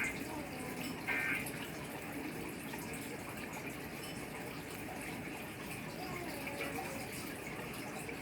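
Emergency Alert System end-of-message data bursts sent over a radio broadcast: the tail of one short buzzy warble right at the start and the last of the three about a second in, marking the end of the alert. After that, steady radio hiss.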